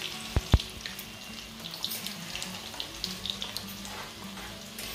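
Garlic and cumin seeds sizzling and crackling in hot oil in a pan. Two sharp knocks come about half a second in.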